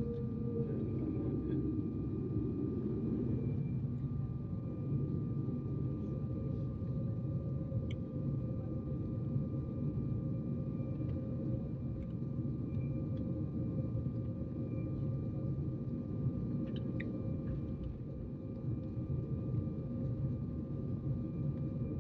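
Cabin noise inside a Sukhoi Superjet 100 before takeoff: the idling PowerJet SaM146 turbofans and the cabin air system make a steady low rumble with a thin, steady whine above it.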